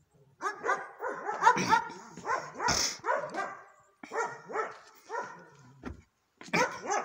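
A dog barking over and over in quick runs of short calls, two or three a second, with brief breaks about four and six seconds in.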